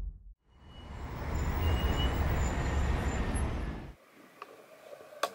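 A rumbling rush of noise that swells up and then cuts off abruptly about four seconds in, followed by faint room tone and a single sharp click near the end.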